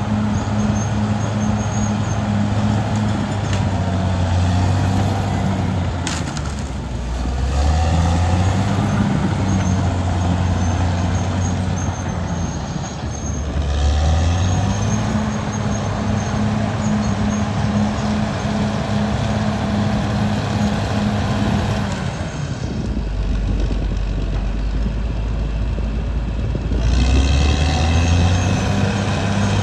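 Caterpillar D6R XL bulldozer's diesel engine running under load. Its pitch sags and recovers a few times, then drops deeper for several seconds near the end before rising again.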